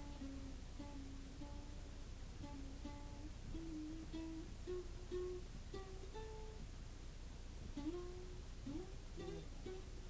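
Faint background music: a plucked string instrument playing a slow melody of single notes, with several notes sliding up in pitch near the end.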